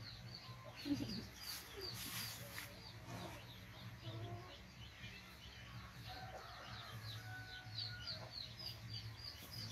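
Birds chirping: a steady run of short, high chirps, about three a second, over a low steady hum.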